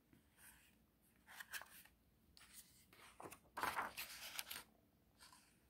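Faint rustling of paper as a picture book's page is turned: a brief rustle about a second and a half in, then a longer one from about three to four and a half seconds in.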